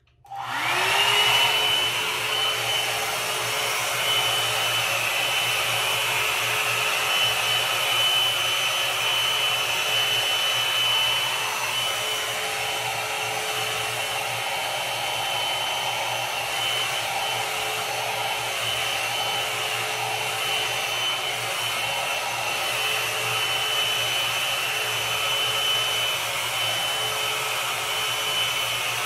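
Philco Soft Beauty Rose 1200 W hot air brush switched on: its fan motor spins up with a rising whine over the first second, then blows steadily with a high whine over the rush of air, set to its hottest of three heat levels.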